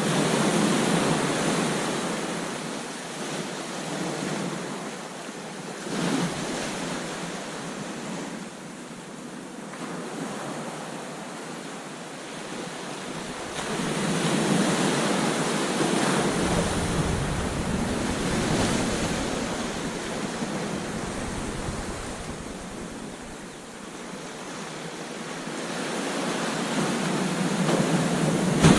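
Ocean surf breaking and washing up onto a beach, swelling and ebbing in waves. There are loud surges near the start and in the middle, and it builds again toward the end.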